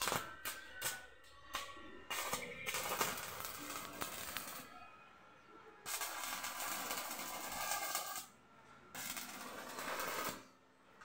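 Stick-welding arc on steel square tubing: a few short crackles as the arc is struck in the first two seconds, then three runs of steady crackling sizzle, each a couple of seconds long, with short breaks between.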